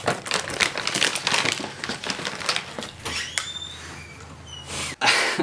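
Plastic snack bags crinkling and rustling as they are handled: a dense, irregular run of crackles, with a louder burst near the end.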